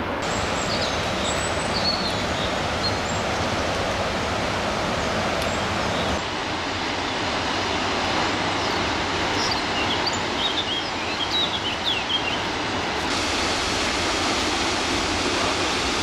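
The Krimml Waterfalls rushing steadily, the even noise of a large volume of falling water. Its tone changes abruptly twice where the recording cuts to another spot. A few short high chirps sound over it near the start and again around ten seconds in.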